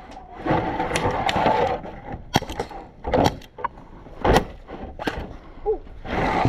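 Scattered sharp cracks and knocks, about eight, irregularly spaced, typical of airsoft gunfire and BB hits, over a rustling haze of movement in the first two seconds.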